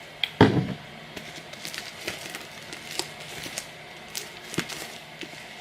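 Sticky glue slime being worked by hand, with scattered small sticky clicks and crackles and one low thump about half a second in.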